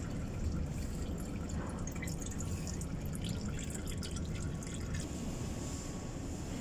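Faint dripping over a steady low background rumble.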